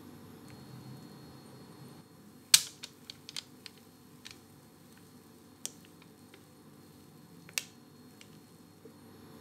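A few sharp clicks and light taps of kitchenware, the loudest about two and a half seconds in, followed by a quick cluster of smaller ticks and two more single clicks, as cake batter is poured into a springform pan.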